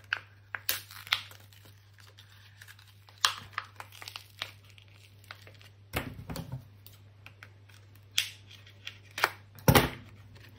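A thin plastic cup crinkling and tearing as it is peeled off a frozen ice pop, in scattered sharp crackles, with a dull knock about six seconds in and a louder one near the end. A low steady hum runs underneath.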